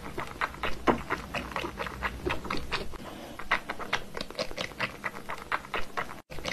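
Cat sucking at the teat of a plastic feeding bottle: rapid wet smacking clicks, about four a second.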